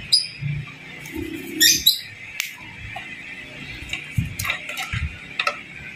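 A bird chirps a few times, short high notes near the start and again a couple of seconds in, among light clicks and low knocks of handling.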